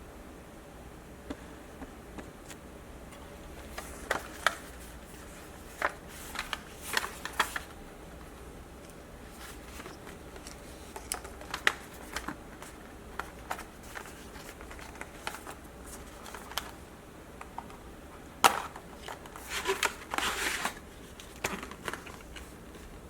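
Scattered small clicks, taps and light rattles of hands handling laptop hardware while a 2.5-inch SSD is being fitted into the drive bay. The sharpest click comes about 18 seconds in, followed by a brief flurry of rattling.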